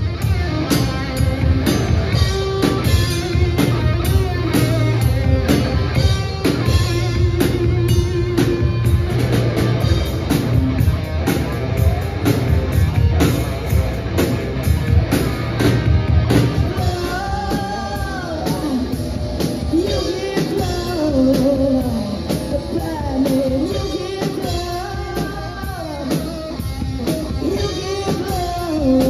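Live rock band playing: drum kit and electric guitar, with a sliding melodic lead line coming forward in the second half.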